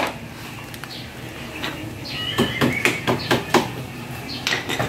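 Metal tools clinking and knocking: a quick run of about seven sharp metallic clinks in the middle, then a couple more near the end.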